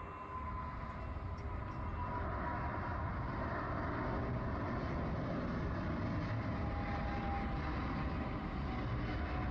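Boeing 777 freighter's GE90 turbofans at takeoff power as it lifts off and climbs out: a deep rumble that builds over the first few seconds and then holds, with a whining tone that slowly falls in pitch.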